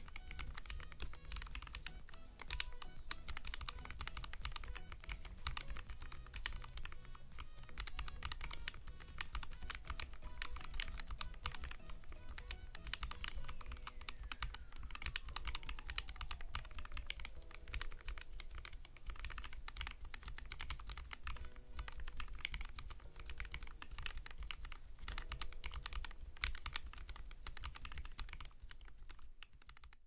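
Typing on a 7sPro split mechanical keyboard: a steady, rapid clatter of key switches, over quiet background music.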